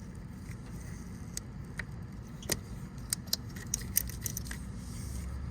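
Scattered small clicks and taps from plastic connector clips on the ignition coils being pried up and handled, over a steady low hum.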